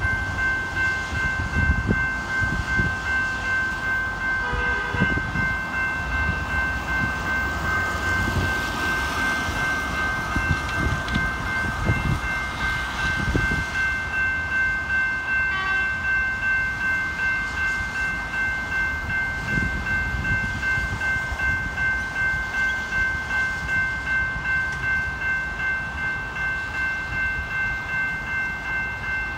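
Level crossing warning bells ringing in a steady, regular beat while the boom gates come down, the signal that a train is approaching. Tyre noise from cars on the wet road rises and fades a few times underneath.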